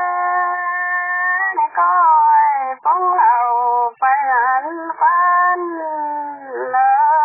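One voice singing a slow Dao folk song (pả dung) in long held notes that bend and slide in pitch, with short breaths between phrases around three and four seconds in.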